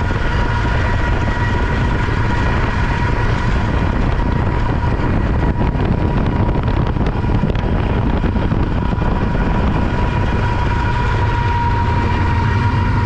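Diesel freight locomotives running at speed, a loud, steady rumble with a thin, steady whine above it.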